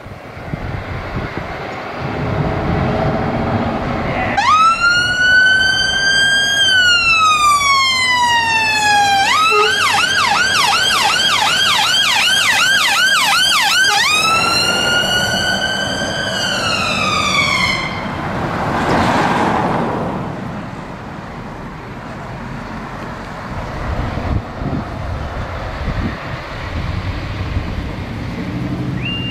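Scania L360 aerial ladder platform fire engine passing on an emergency call with its siren on. The siren starts about four seconds in with a slow rising-and-falling wail, switches to a fast yelp about nine seconds in, goes back to the wail and cuts off around eighteen seconds. The truck's diesel engine runs underneath and fades as it pulls away.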